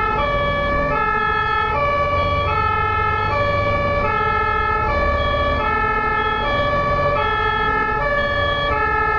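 German ambulance two-tone siren switching back and forth between a high and a low note, each held about three-quarters of a second, over a low rumble.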